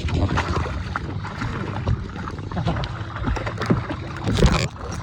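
Boat motor running steadily, with water splashing and knocking against the hull; a louder rush of noise about four and a half seconds in.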